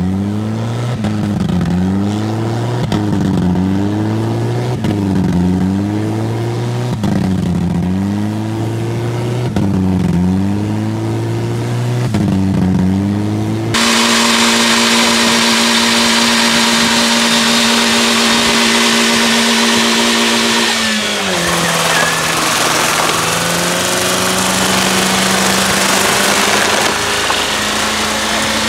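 Two car burnouts, one after the other. First a small car's engine revs up and down over and over, about every second and a half, with its tyres spinning. After a cut about halfway through, a Mazda3's engine is held at high revs with a loud rushing hiss of spinning tyres, its pitch dropping and settling lower near three-quarters of the way in.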